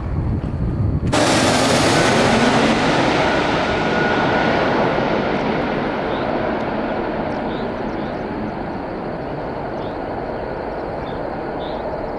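Jet engine noise of an Airbus A320neo airliner passing close on approach. It comes in suddenly about a second in, and then slowly fades as the aircraft moves away, losing its high hiss first.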